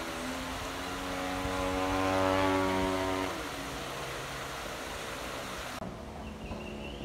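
Model airplane's propeller motor droning in flight, a steady buzz that shifts in pitch as the throttle or its distance changes; its pitch drops and it grows quieter a little over three seconds in.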